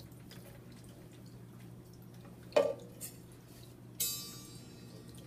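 Handling of a homemade canjo as its wire string is wound tight on the tuner. A sharp knock comes about two and a half seconds in and leaves a faint ringing tone. About four seconds in there is a bright metallic twang that fades over about a second.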